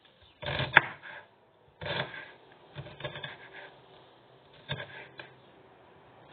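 Chef's knife chopping an onion on a wooden cutting board: irregular blade knocks on the board with some scraping. The strokes are loudest about a second in, then come sparser and fainter.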